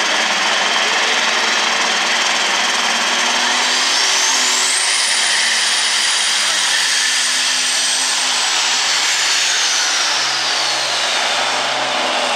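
Heavy super stock pulling tractor with an Oliver body, its turbocharged engine running loud and revving. A high whine climbs steeply about four seconds in, holds, then slides back down near the end.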